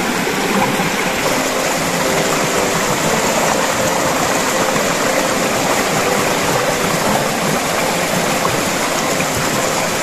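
Shallow rocky mountain stream rushing steadily over boulders and through a net stretched across the current.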